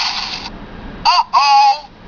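Handheld toy sound effects machine playing its recorded effects through a small speaker. A noisy effect cuts off about half a second in. Near the middle come two short pitched calls that bend in pitch, the second one longer.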